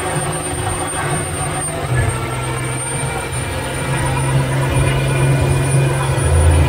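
Semi-truck's diesel engine held at high revs during a burnout, its rear wheels spinning on the pavement and smoking, getting somewhat louder in the second half. A thin, steady high whistle runs above the engine.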